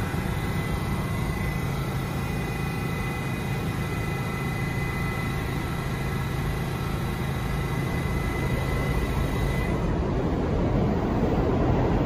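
Stationary R68A New York City subway car idling at a station: a steady low hum with a thin high-pitched whine from its onboard equipment. The whine cuts off about ten seconds in and a louder rumble builds near the end.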